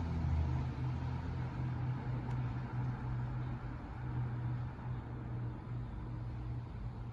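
A cat purring: a steady low rumble that breaks briefly now and then.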